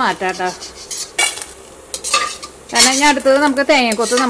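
Stainless steel slotted spatula scraping around a stainless steel kadai while stirring dry-roasting whole spices, metal on metal squealing in short wavering strokes. Quieter with a few clicks in the middle, louder and squealing again in the last second and a half.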